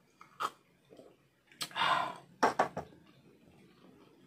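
A person drinking juice from a glass mug: a breathy swallow-and-exhale about two seconds in, then a quick cluster of clicks and knocks from the glass being handled and set down on the table.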